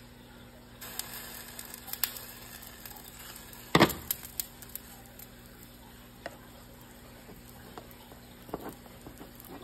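Pancake batter sizzling in a nonstick frying pan once its glass lid is lifted off, with scattered clicks and one sharp clatter about four seconds in as the lid is handled. Near the end come a few knocks as the pan is moved on the glass cooktop.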